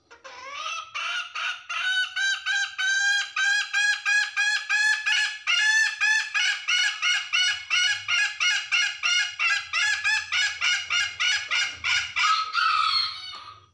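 Domestic hen giving the long 'ngekek' cackle, a hen's call for the rooster. It is an unbroken run of quick, evenly spaced notes at about four a second. The run opens with a rising note and ends in a longer drawn-out note.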